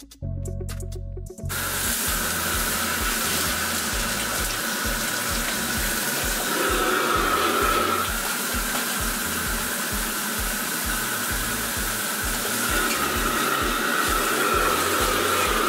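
Electronic intro music cuts off about a second and a half in, giving way to the steady rush of a commercial wok station: the high-flame gas burner running and water pouring from the stove's tap, while leafy greens are stirred in a steaming wok.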